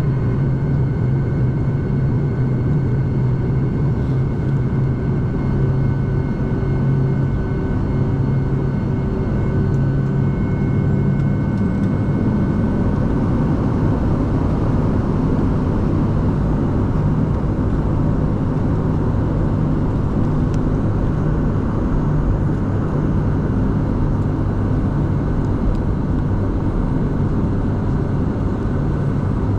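Boeing 757-200 cabin noise during taxi: the engines run with a steady hum and whining tones, and the tones shift slightly about eleven seconds in.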